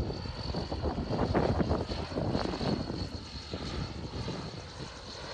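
An engine running steadily, with rough rumbling low noise and a faint steady high whine.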